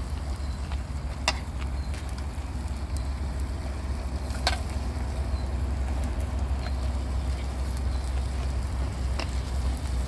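Low rumble of wind buffeting the microphone, with a few sharp clicks over the open wood cooking fire as pans of meat and vegetables are stirred.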